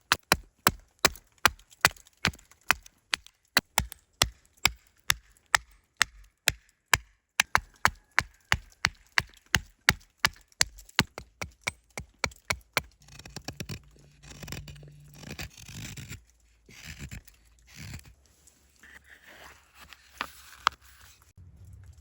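A blade chopping into a wooden spoon blank with quick, even blows, about three a second. About thirteen seconds in, the chopping gives way to irregular scraping and rubbing on the wood, with an occasional knock.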